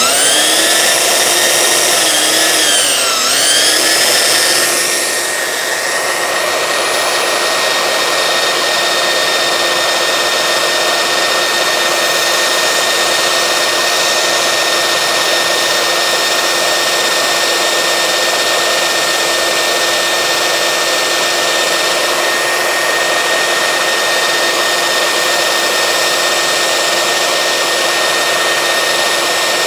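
Makita 9403 4x24-inch belt sander switching on and spinning up with a rising whine, its pitch dipping briefly about three seconds in, then running steadily. A laurel-wood stick is held against the running sanding belt, being ground to a point.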